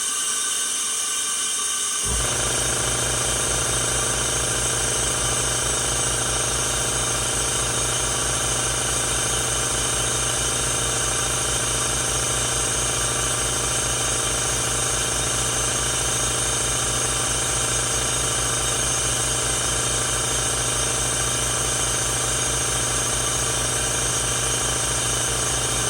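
Compressed air hissing through a venturi vacuum that is sucking stale gasoline out of the fuel tank. About two seconds in, an air compressor kicks on and runs steadily with a fast, even pulsing under the hiss.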